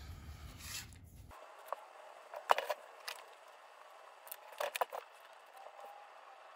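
A few light, sharp clicks and taps of small metal parts as a circuit board and its pin headers are handled and hand-soldered with a soldering iron, in two short clusters.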